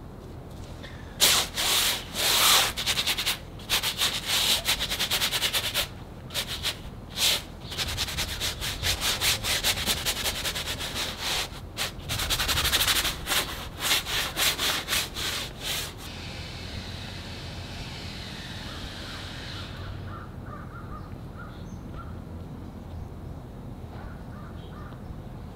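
Oil paint being scrubbed and rubbed onto a large canvas in quick rough strokes, in runs with short breaks, then a softer steady hiss near the end.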